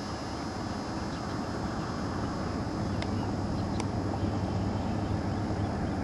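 Steady low outdoor rumble with no distinct source, growing slightly louder, with two faint sharp ticks about three and four seconds in.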